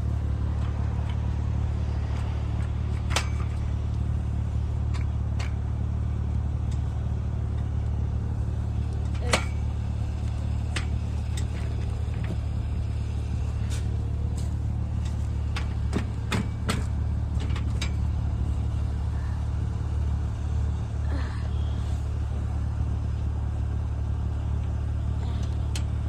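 A steady low hum like an idling engine, with scattered sharp knocks and clanks of scrap being handled.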